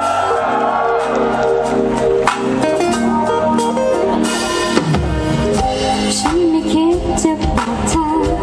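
A live pop band playing with drum kit, acoustic guitar and keyboard.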